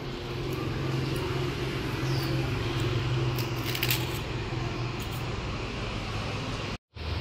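Steady outdoor background noise with a low hum, a few faint clicks and a brief high chirp about two seconds in; the sound cuts out for a moment near the end.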